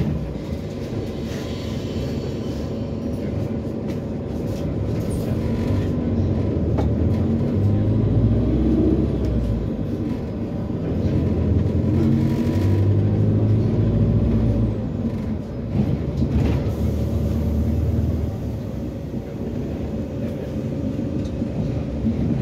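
Inside an Autosan SanCity 9LE city bus under way: the Cummins ISBe diesel engine and Allison six-speed automatic gearbox pull with a steady low rumble. Twice the engine pitch climbs and the sound grows louder, then drops back as the gearbox shifts. A few sharp rattles or knocks come from the cabin.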